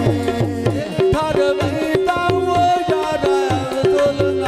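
Live Punjabi folk mahiya music in an instrumental passage: tabla drumming under a melody of held, bending notes.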